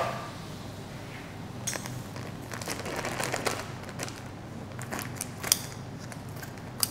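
An empty metal can is set down on a stainless-steel bench with one sharp clack, then scattered light clicks and rustles of a measuring cup and spoon being worked in a bowl of dry ingredients, over a faint steady low hum.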